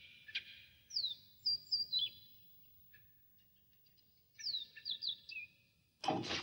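Birds chirping: short, high chirps that sweep down in pitch, in two clusters about a second in and again past four seconds. A sudden loud rush of noise starts just before the end.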